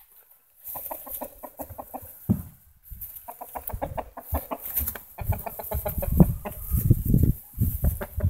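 Rabbits mating: rapid runs of short, clucking honk-grunts, the courtship sound of a buck pursuing a doe. From about halfway on there are low thuds and rustling in the hay.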